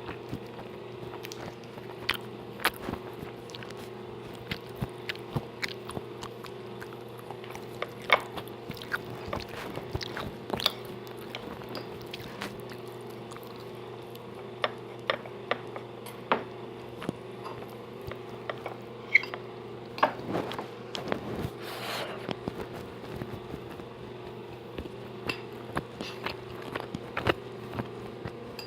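Close-up eating: irregular crisp clicks and crunches of food being bitten and chewed, over a steady low hum.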